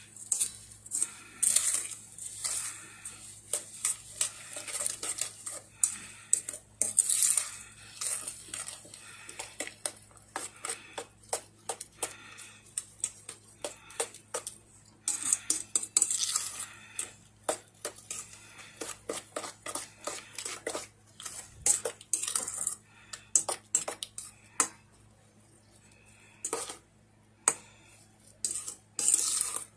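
Metal spoon stirring elderberry pie filling in a metal mixing bowl: irregular clinks and scrapes of the spoon against the bowl.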